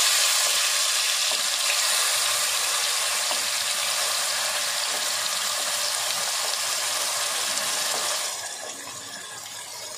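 Wet ground masala paste sizzling in hot oil in a kadhai as it is spooned in, a loud steady hiss that dies down about eight seconds in.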